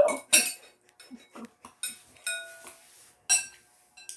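Metal spoon clinking and scraping against a soup bowl as soup is spooned up: a series of sharp clinks, a few of them ringing briefly.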